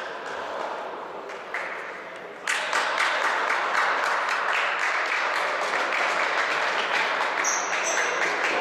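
Spectators in a sports hall clapping and cheering. The clapping starts suddenly about two and a half seconds in and keeps up steadily after that.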